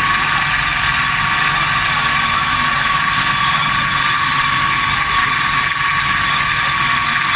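Automatic CNC metal-cutting band saw running, a steady hiss with a constant high whine that does not change.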